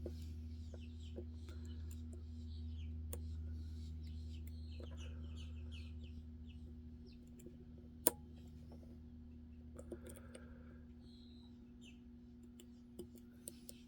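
Lock picking in a Magnum Everest padlock: the pick scrapes and taps on the pin stack in light, scattered clicks, with one sharp click about eight seconds in. Faint high chirping runs alongside, and a low hum fades out about halfway through.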